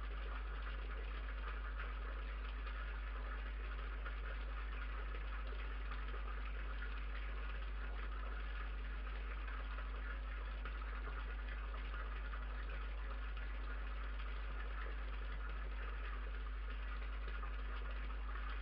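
A steady low electrical hum with a hiss over it, unchanging throughout. This is the noise floor of a night-vision security camera's microphone.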